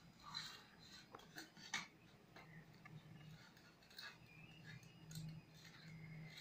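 Near silence with scattered faint clicks and rustles from hands handling a small brass idol in a steel bowl while a belt is tied on it, over a faint low hum.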